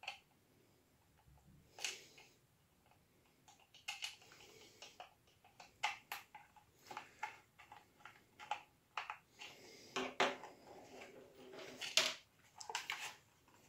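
Faint, irregular clicks and taps of small plastic and metal parts with some rustling: the plastic body of a model locomotive being handled and small screwdrivers set down on a cutting mat. The sharpest click comes a couple of seconds before the end.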